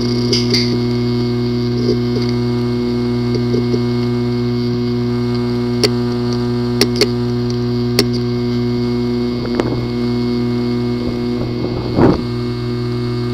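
Failing hard drive running with a steady hum, broken by sharp, irregular clicks and a louder knock near the end. This clicking is a symptom of a physically damaged disk assembly, and the drive cannot be accessed.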